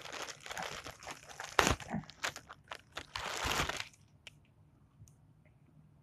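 A clear plastic bag around a plush toy crinkling and rustling as it is handled and pulled open, with a few heavier bumps. It stops after about four seconds, leaving only a few faint ticks.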